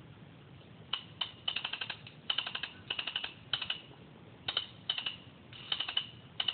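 Paintball markers firing in quick bursts of several shots each, the bursts coming about every half second, starting about a second in.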